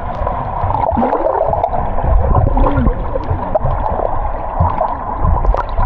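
Steady rushing and gurgling of water around a catamaran, with a rumbling low end.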